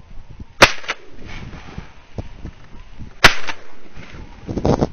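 Shotgun fired twice, about two and a half seconds apart; each shot is a sharp crack with a brief tail.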